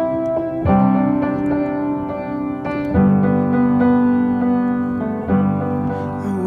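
Background music: a piano or electric piano playing sustained chords, with a new chord struck every couple of seconds.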